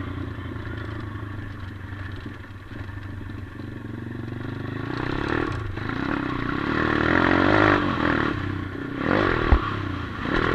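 140cc pit bike's single-cylinder four-stroke engine running under throttle on a dirt track, dipping briefly about halfway through and then building in revs and loudness. A sharp knock near the end.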